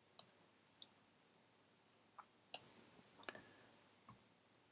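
Scattered faint clicks from a computer keyboard and mouse, about nine in all, several bunched together past the middle, over near silence.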